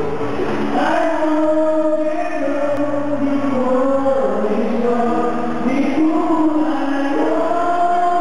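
Singing in long held notes that step up and down in pitch, a slow melody sung by voices loud and close.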